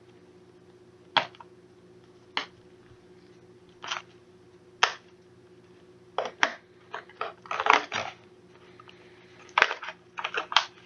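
Scattered crackles and taps of cardboard and wrapping as a sealed box of 1994 Playoff football card packs is opened by hand, a few single sounds at first and quicker clusters from about six seconds in.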